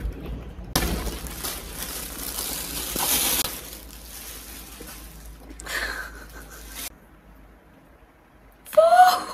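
Rustling and handling noise for a few seconds, fading to quiet, then a short vocal sound near the end.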